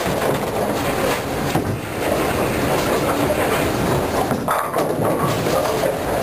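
Bowling alley din: a steady rumble of bowling balls rolling down the wooden lanes, with the clatter of the lanes and pinsetters all around.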